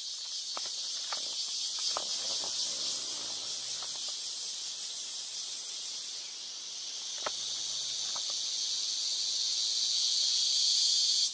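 Dense, steady high-pitched chorus of forest insects, growing louder toward the end, with a few faint clicks in the foreground.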